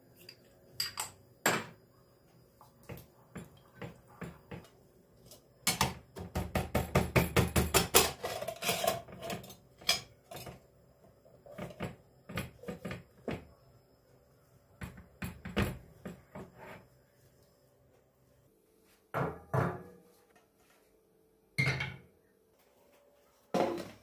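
Kitchen handling sounds around a stainless steel pressure cooker: a wooden spoon knocking on the cup and the pot, and the pressure cooker lid being fitted and clamped shut. There are scattered knocks and clicks, a quick run of rapid knocks about six seconds in, and a few separate louder knocks near the end.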